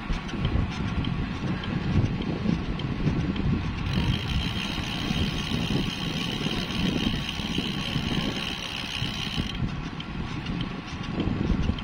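Wind buffeting the microphone of a camera riding on a bicycle, with road rumble underneath. From about four seconds in until near the end, a steady high buzz joins it.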